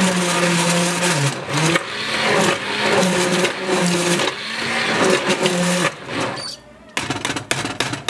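Immersion stick blender running in a pot of cooked pumpkin soup, puréeing it smooth, its motor pitch dipping and rising as it works. The motor stops about six seconds in, followed by a few clicks.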